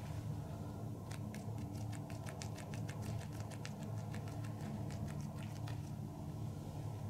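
Quick light tapping, about five soft taps a second, from about a second in until nearly six seconds, over a steady low hum.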